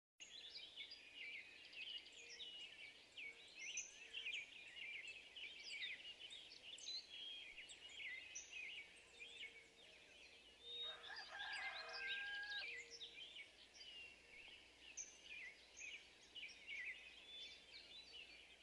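Faint outdoor birdsong: many small birds chirping and warbling together, with one longer, lower call of a few held pitches lasting about a second and a half near the middle.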